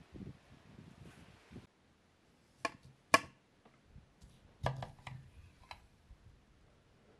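A large kitchen knife cutting a lemon in half on a plastic cutting board: sharp clicks and taps of the blade on the board. The loudest comes about three seconds in, followed by a cluster of lighter taps a little later. Soft low knocks come before them at the start.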